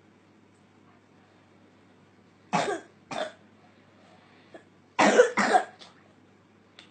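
A young boy coughing in two bouts of two coughs, about two and a half seconds in and again about five seconds in: a night cough from post-nasal drip.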